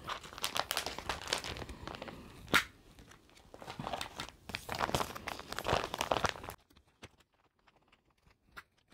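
Plastic photocard sleeves and binder pages crinkling and rustling as cards are moved around, with one sharp click about two and a half seconds in. The handling stops after about six and a half seconds, leaving only faint ticks.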